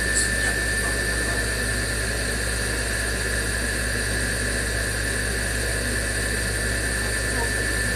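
Steady machine hum with a constant high-pitched whine, unchanging throughout.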